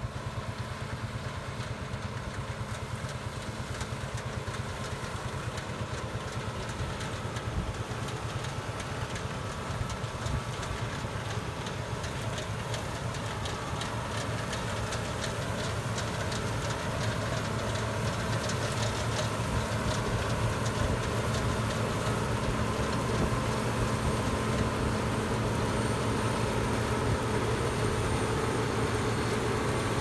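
John Deere 9400 combine harvesting oats: a steady diesel engine and threshing drone that grows gradually louder as the machine draws near.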